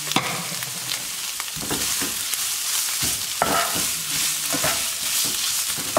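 Sliced onions and green curry paste sizzling in oil in a non-stick frying pan, with a plastic spoon scraping and stirring them through the pan in repeated strokes.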